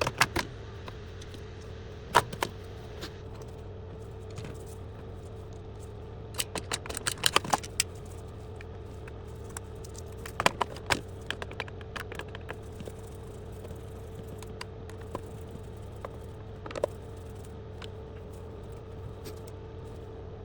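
Scattered clicks, knocks and small rattles of Roomba 960 plastic parts being handled and fitted back together, in bunches about six to eight and ten to eleven seconds in, over a steady faint hum.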